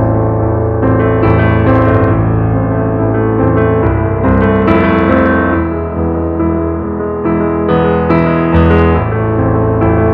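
Background piano music playing chords, with a new chord struck about every second or so.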